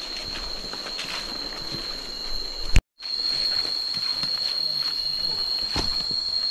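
Steady high-pitched insect drone in tropical forest, with light footsteps and rustling through undergrowth. About three seconds in the sound cuts out briefly after a sharp click, then the drone carries on a little louder.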